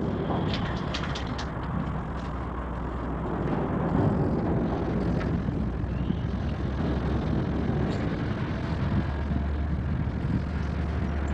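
Steady rumble of road traffic passing over the bridge overhead, swelling a little a few seconds in.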